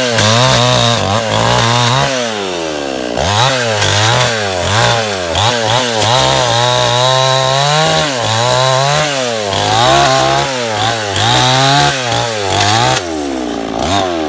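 Two-stroke chainsaw cutting through a fallen tree branch. Its engine pitch rises and sags again and again as the chain bites into the wood and frees up.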